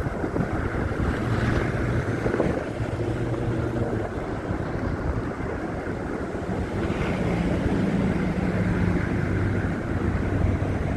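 Steady hum of vehicle engines in traffic, with low pitched tones that swell and fade over several seconds, over wind noise on the microphone.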